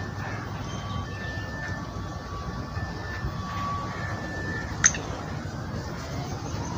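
Outdoor background noise: a steady low rumble, with thin whistle-like tones coming and going, and one sharp click about five seconds in.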